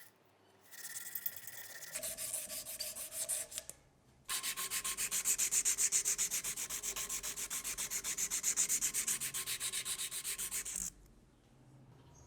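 An abrasive rubbed back and forth on a steel knife blade in quick, even strokes. There are two short bouts, then a long, louder run of about five strokes a second that stops abruptly near the end.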